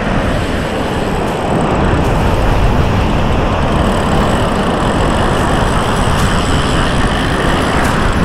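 Steady, loud rushing of wind and surf on an open shore, with a few faint clicks.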